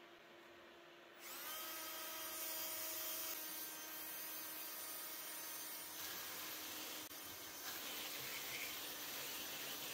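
Cordless drill starts up about a second in and runs steadily, spinning a worn flap-sander wheel; the motor gives a steady whine over the noise of the wheel.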